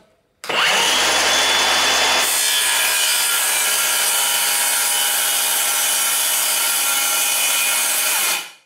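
Milwaukee cordless circular saw with a 24-tooth blade spinning up with a short rising whine, then cutting steadily in a shallow scoring pass through melamine board, the blade set to about a third of its depth to keep the top face from tearing out. It runs for about eight seconds and cuts off just before the end.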